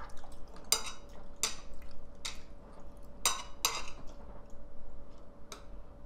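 Metal spoon and chopsticks clinking against ceramic plates and bowls during a meal: about six sharp, separate clinks at irregular intervals.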